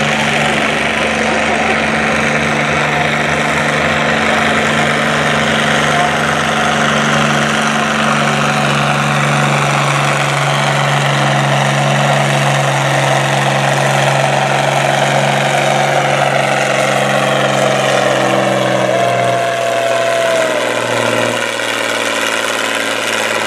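International Harvester pulling tractor's diesel engine running hard under full load as it drags the weight-transfer sled. The steady engine tone eases off near the end.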